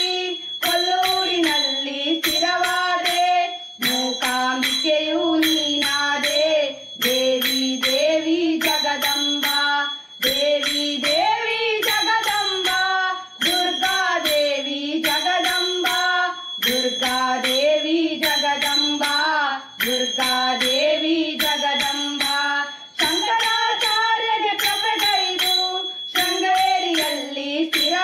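Women singing a Hindu devotional bhajan, accompanied by small brass hand cymbals (taala) struck in a steady rhythm that keeps a bright ringing under the voices.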